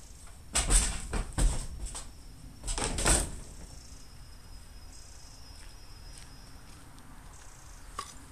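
Scrap metal being dropped into the back of a van, clattering and clanging on the van's floor in two bursts of knocks in the first few seconds. A single light click follows near the end.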